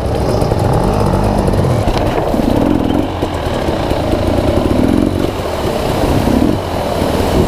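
Dirt bike engine revving up and down in repeated swells as the bike picks its way over slippery, algae-covered creek rock.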